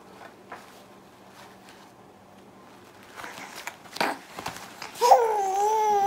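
A disposable diaper crinkling and rustling as a baby waves and kicks it, then about five seconds in the baby lets out a loud, drawn-out vocal squeal that dips slightly in pitch.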